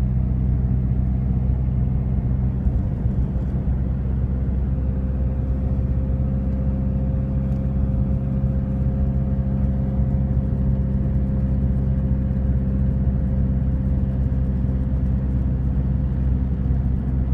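Steady low drone of a car driving along, heard from inside the cabin. A faint steady whine joins it about four seconds in.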